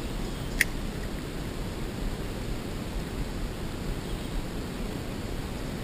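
Steady rushing outdoor noise on the camera's microphone, with one sharp click a little over half a second in.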